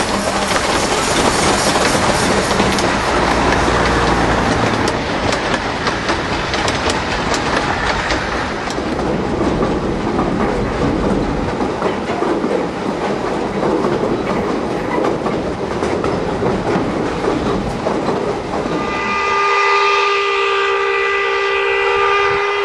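Narrow-gauge steam train running, its carriage wheels clicking over the rail joints. About three seconds before the end, a steam locomotive whistle starts and holds one steady note.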